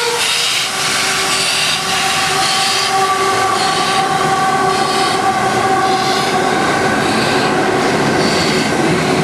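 NSW 59 class steam locomotive moving slowly into a platform. Its steam hiss swells about once a second, under a long steady high-pitched tone that fades out after about eight seconds.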